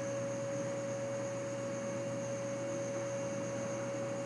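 A steady, unchanging hum: one constant mid-pitched tone over a lower hum and a faint hiss.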